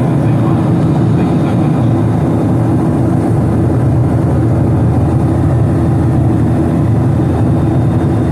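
Steady roar of a Boeing 737-800's CFM56-7B jet engines at takeoff power, heard from inside the cabin, mostly a deep even rumble with no change in pitch.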